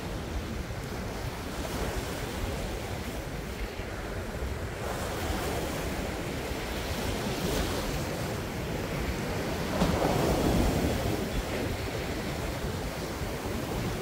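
Winter sea waves surging and breaking on a rocky shore, with wind rumbling on the microphone. A wave breaks loudest about ten seconds in.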